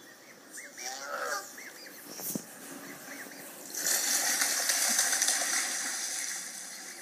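Reconstructed call of Kairuku, an extinct giant penguin, played through a tablet speaker: a few short squawks in the first second and a half, then about four seconds in a louder, harsh, hissy call lasting about two and a half seconds.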